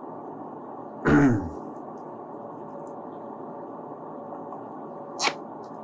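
A short throat-clearing sound, falling in pitch, about a second in, over a steady background hiss. Near the end comes a single sharp click from the screwdriver work on the laptop's bottom cover.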